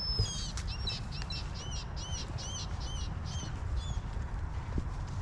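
A small bird singing a quick series of about nine short, high whistled notes, each rising and falling, about three a second, stopping about four seconds in, over a steady low outdoor rumble.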